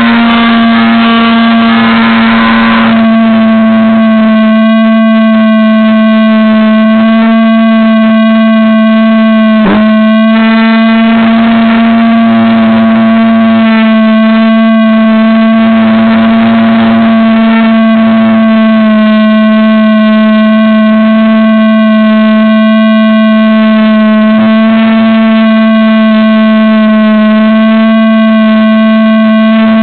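Motor and propeller of a Wild Hawk RC plane heard through the plane's own onboard camera, running at a steady throttle: one loud, constant whine. About ten seconds in there is a brief dip in pitch.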